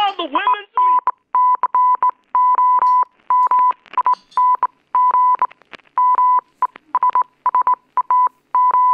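A song on the radio cuts off in the first second. Then a single high beeping tone is keyed on and off in irregular short and long pulses, like Morse code: the radio's signal that heralds an urgent news bulletin.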